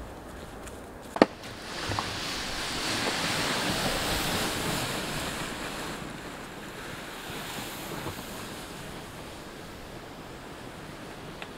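A gust of wind rushing over the microphone, swelling about two seconds in and dying away again. A sharp click sounds just before the gust.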